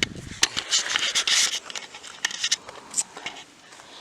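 Irregular scraping and scratching with many sharp clicks.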